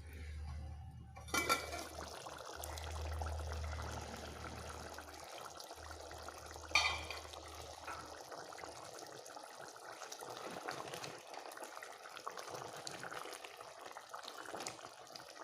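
Chicken and plantain curry bubbling in the pot once the lid comes off about a second in, with a sharp metal clink of a utensil on the pot about seven seconds in. A low hum runs under it for the first eight seconds or so.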